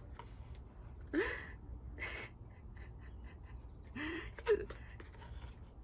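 A person's short gasps and wordless exclamations, three in all, two rising in pitch and one breathy, over a faint steady low hum.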